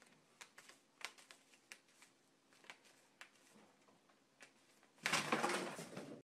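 Irregular light clicks and taps, a few a second, from a cat's paws and claws working at a flat pad on a hardwood floor, over a faint steady hum. About five seconds in, a louder noisy burst lasts about a second and then cuts off suddenly.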